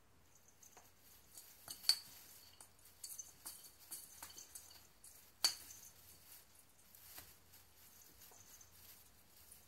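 A cat climbing through an artificial Christmas tree: faint rustling and scattered light clicks of the plastic branches, with two sharper clicks, one about two seconds in and another about halfway through.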